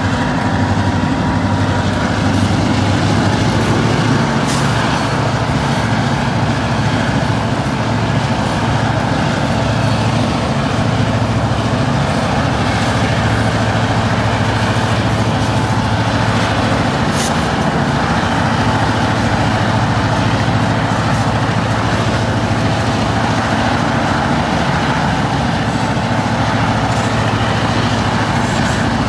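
Freight train diesel locomotives running steadily, heard from a car driving alongside, mixed with road noise. The sound is a loud, even drone with no change in pace.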